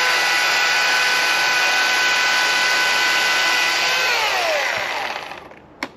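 Husqvarna chainsaw's two-stroke engine held at full throttle with a steady high pitch, then the throttle is released about four seconds in and it winds down to idle. A single sharp click near the end.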